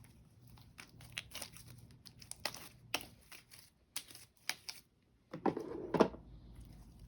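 Sticky homemade white-glue slime being squeezed and kneaded by hand, giving many short wet clicks and crackles, with one louder, longer squelch about five and a half seconds in.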